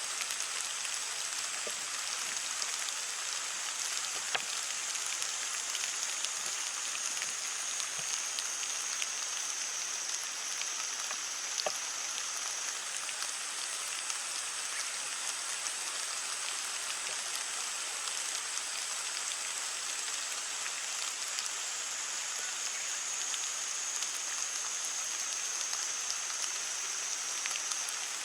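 Heavy rain falling steadily on leaves, an even patter with scattered louder single drops ticking through it.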